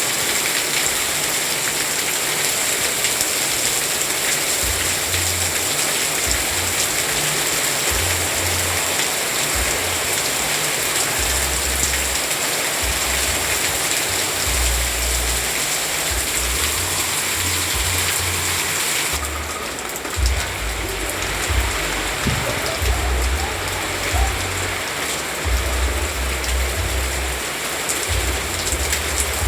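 Steady rain falling, an even hiss of drops on surfaces with a low rumble coming and going underneath. About two-thirds of the way through the sound shifts slightly duller, and a few louder drops stand out.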